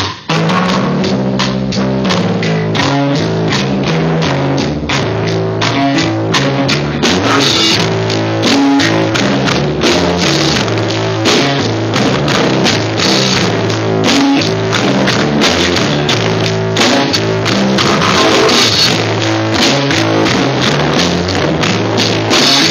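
A rock band playing live: a drum kit with steady hits and cymbal crashes every few seconds, over electric guitar and a low line stepping from note to note. The music breaks off for a moment right at the start.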